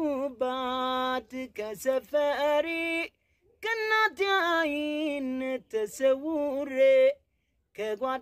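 One voice singing unaccompanied, in long held notes with a wavering pitch, broken into phrases by two short pauses.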